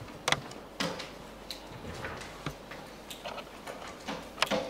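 A few sharp clicks and knocks of handling and movement, the loudest about a third of a second in, near one second and just before the end, over quiet room tone.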